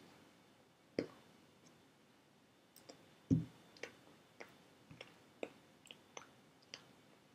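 Irregular soft clicks and taps of hands striking each other while signing, about a dozen in all, with a duller, louder thump about three seconds in.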